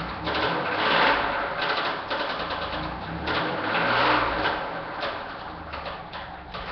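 1998 Chevrolet Camaro engine running with a fast, steady rod knock, swelling louder twice, about a second in and about four seconds in: the connecting-rod bearing has totally given out.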